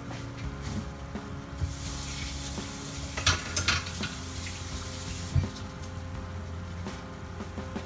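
Chicken liver adobo simmering and sizzling in a frying pan over a steady low hum. The sizzle swells for a few seconds in the middle, with a couple of sharp clicks a little past the middle and another later on.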